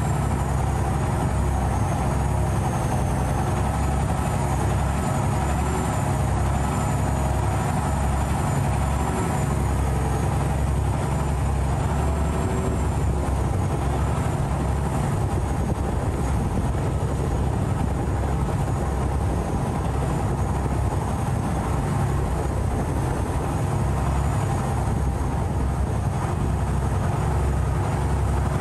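Khlong Saen Saep canal express boat's diesel engine running steadily under way, a loud, unbroken low drone heard from on board.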